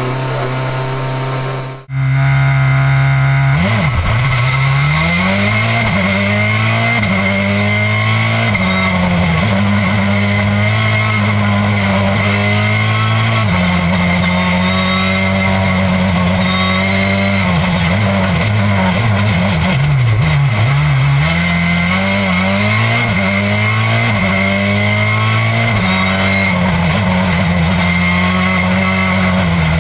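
Citroën C4 WRC rally car's turbocharged four-cylinder engine heard on board. It cuts in about two seconds in and revs hard up through the gears, its pitch climbing and then dropping sharply at each shift, with a few steadier stretches and dips as it brakes for corners.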